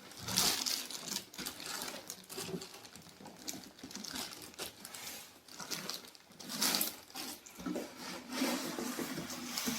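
Packaging being handled while a microwave oven is unboxed: irregular rustling and crinkling with short crackles.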